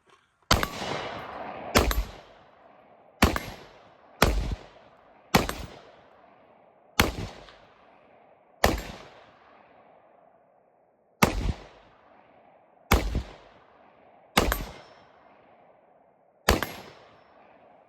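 Gunshots from a firearm fired one round at a time, eleven shots about one to two and a half seconds apart. Each shot has a sharp crack and a ringing tail that dies away.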